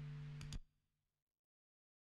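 The last held note of an acoustic song fading out, ended by two quick clicks about half a second in, then dead silence as the recording stops.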